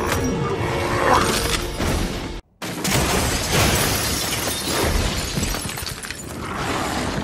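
Film fight-scene sound effects: crashing and shattering debris over a music score, with a sudden brief gap about two and a half seconds in where the soundtrack cuts between shots.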